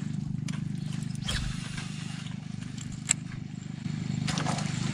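Boat engine running steadily at low speed, a low hum with a fast even pulse. A short swish about a second in and one sharp click about three seconds in.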